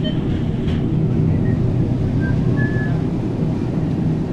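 Steady low rumble of store background noise, with a few faint short high beeps in the middle.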